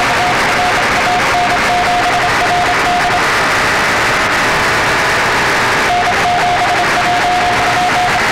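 Morse code (CW) on the 20-metre amateur band through a shortwave receiver: one keyed tone beeping out dots and dashes over a loud hiss of band noise. The keying stops for a few seconds in the middle, then resumes.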